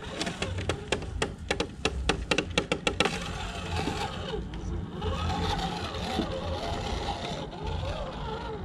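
Electric motor and drivetrain of a 1/10-scale RC crawler pickup whining, its pitch rising and falling with the throttle as it crawls over loose dirt. A quick run of clicks and knocks fills the first three seconds or so as it climbs over the clods.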